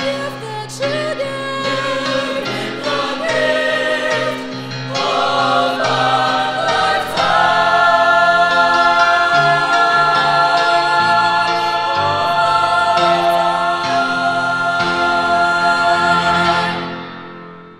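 Mixed choir singing the close of a gospel song with piano accompaniment, swelling about seven seconds in to a loud held final chord that fades out near the end.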